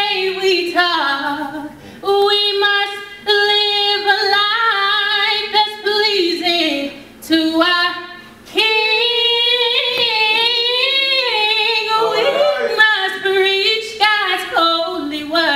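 A woman singing, apparently unaccompanied, holding long notes with slides and vibrato between short breaths.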